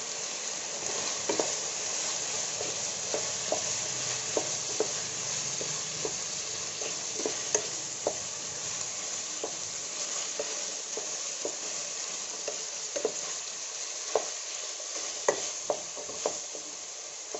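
Diced potato, cauliflower and peas sizzling steadily in hot oil in a metal kadai, stirred with a wooden spatula that scrapes and knocks against the pan at irregular moments, a little more often near the end.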